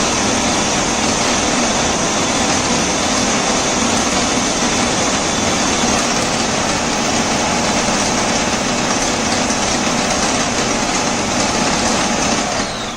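Usha FP 3811 food processor's 1000 W motor running steadily at speed, turning the kneading blade through wheat flour and water to make chapati dough. It is switched off right at the end, and the sound falls away quickly.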